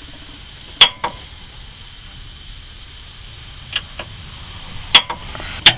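Click-type torque wrench giving several sharp clicks, some in close pairs, as it breaks at its set torque of 76 ft-lb on a subframe bolt.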